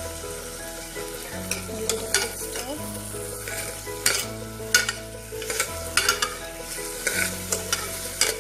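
A steel ladle stirring chopped beetroot, potato and tomato frying in ghee in a pressure cooker, the ladle clinking and scraping against the pot again and again from about a second and a half in, over soft background music.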